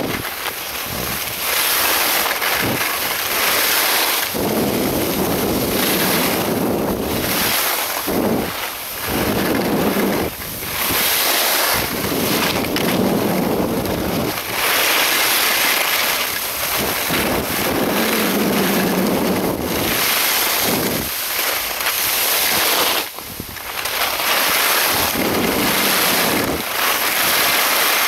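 Loud wind buffeting the microphone of a Sony FDR-X1000V action camera during a fast downhill ski run: a steady rushing noise that swells and drops in gusts every few seconds.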